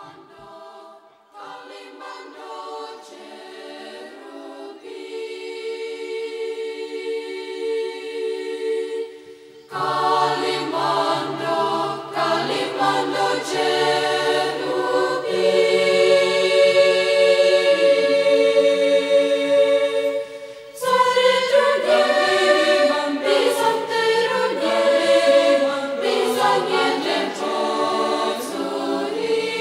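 Choral music on the soundtrack: voices holding long chords, starting soft and swelling. Lower voices come in about a third of the way through, and the singing breaks off briefly about two-thirds in before going on.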